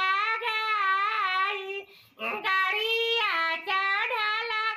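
A man singing a wedding song in a high, woman-like voice. He sings two long phrases with a wavering pitch and a short break for breath about two seconds in.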